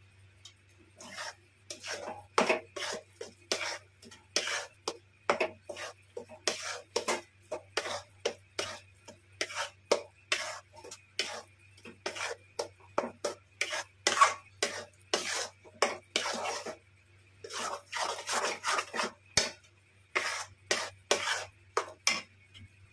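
Metal spatula scraping and pressing khoa around a metal kadhai, working the hard khoa soft. The strokes come about twice a second, with a short break about two-thirds of the way through.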